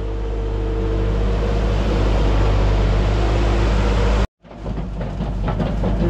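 New Holland L175 skid steer loader's diesel engine running hard while working, with a steady whine over the first couple of seconds. The sound cuts out for a moment a little after four seconds in, then the engine carries on.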